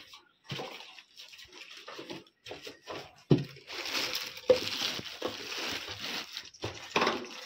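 Clear plastic wrapping crinkling and rustling as it is handled and pulled off a new heat-pillar room heater, with a couple of knocks from handling early on. The rustling becomes denser and steadier about halfway through.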